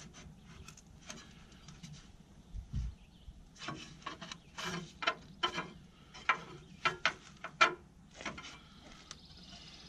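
Sheet-metal patch panel being pushed by hand around a clamped wooden baseball bat to roll a rounded edge: irregular knocks, creaks and scrapes of the metal working against the bat, the loudest near the end.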